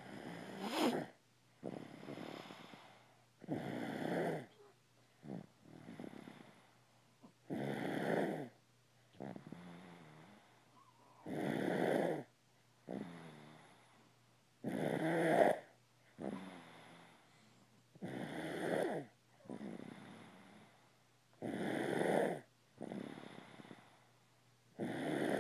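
Snoring in a steady sleep-breathing rhythm: a loud rasping snore about every three and a half to four seconds, with a quieter breath between each.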